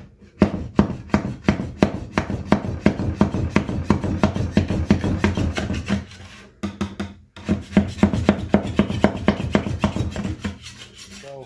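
Metal putty knife scraping stripper-softened shellac or lacquer off a wood-veneer chest top in quick repeated strokes, about four or five a second, with a brief pause a little past halfway.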